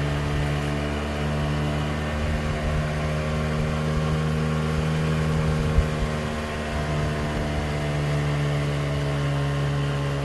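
An engine running steadily at an even speed, a constant low drone with one brief knock about six seconds in.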